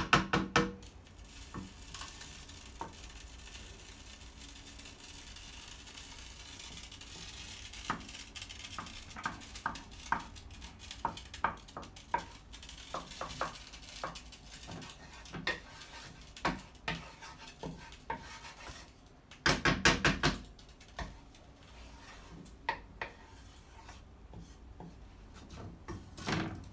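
Slotted wooden spatula scraping and tapping irregularly around a nonstick frying pan as olive-oil spread melts in it with a faint sizzle.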